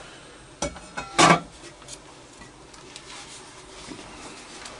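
Workshop handling sounds of a circular saw motor and plywood being moved on a bench: a light knock, then a sharper clatter a little over a second in, followed by faint rubbing and shuffling.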